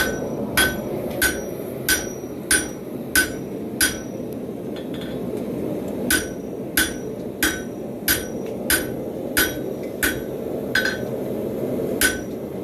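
Hand hammer striking a hot railroad spike on a Hay-Budden anvil, drawing it out into a knife blade: steady blows about one and a half a second, each with a short metallic ring, with a pause of about two seconds near the middle. A steady rushing noise runs underneath.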